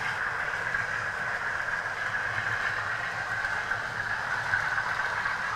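Model trains running steadily on the layout's track. The Hornby Class 50's sound decoder plays a diesel engine sound through its bass reflex speaker, over the steady run of wheels and motors.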